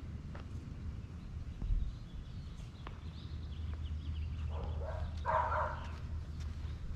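A dog barking, two short barks close together about four and a half seconds in, over faint footsteps and a low steady rumble.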